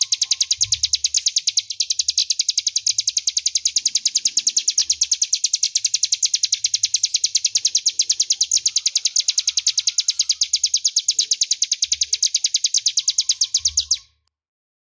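Ciblek gunung (prinia) singing its 'ngebren' song: one long, loud, clear trill of fast, evenly spaced high notes, cutting off abruptly near the end.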